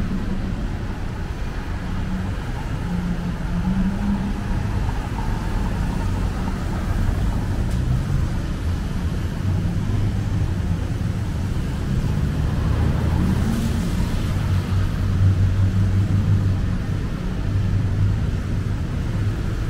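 Steady city street traffic: vehicle engines running and passing, a continuous low hum with slow swells as vehicles go by.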